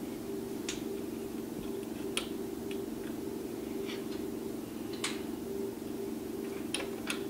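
Scattered light clicks and ticks, about seven or eight at irregular intervals, as rubber loom bands are stretched and snapped onto the pegs of a plastic bracelet loom, over a steady low background hum.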